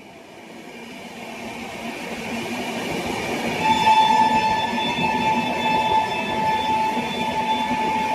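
Train approaching, the rumble of the train growing steadily louder. About halfway through, the locomotive's horn starts one long, steady blast and holds it.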